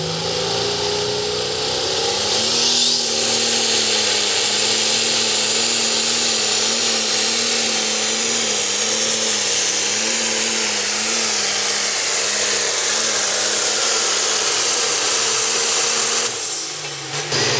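Turbocharged diesel engine of a Limited Pro Stock pulling tractor at full throttle under load during a pull. A whistle rises about two to three seconds in and a high steady whine holds, while the engine note wavers up and down rhythmically. It drops off suddenly near the end as the throttle is cut.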